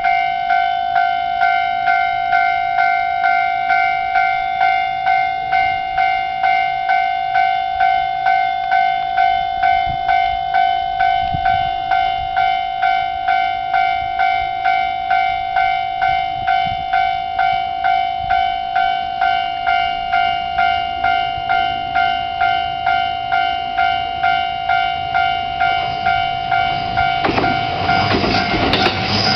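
Japanese railway level-crossing warning bell ringing steadily at about two strikes a second: the crossing is closed for an approaching train. Near the end a train's rumble rises under the bell as it reaches the crossing.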